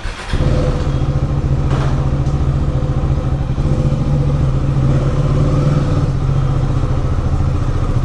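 KTM Duke 390's single-cylinder engine running at a steady, unchanging speed, with a brief click about two seconds in; the bike has just been serviced.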